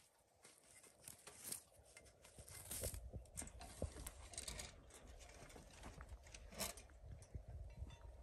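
Faint crunching and rustling of footsteps on dry, straw-strewn ground, with scattered small clicks and knocks.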